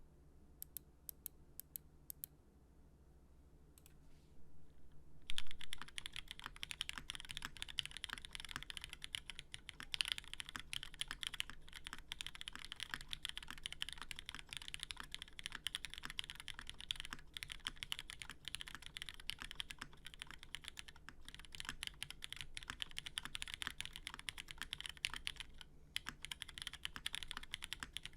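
Typing on a custom tenkeyless mechanical keyboard with Cherry MX Hyperglide Black linear switches, an aluminum plate and GMK keycaps. A few single keystrokes come first, then fast, continuous typing starts about five seconds in.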